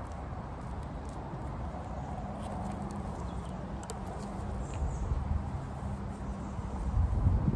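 Hands splitting and stripping green nettle stems: soft rustling with a few faint snaps, over a steady low rumble that swells briefly near the end.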